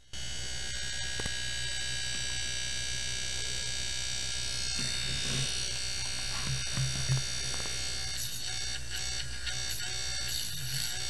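Small brushed DC motor, the Stirling engine's generator run in reverse on 5-volt USB power, spinning freely with its drive belt off. It makes a steady, high electric buzz that switches on abruptly.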